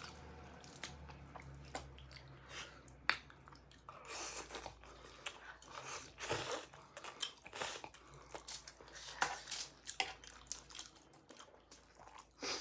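A person chewing and biting sausage chow mein, with wet mouth sounds and many small sharp clicks.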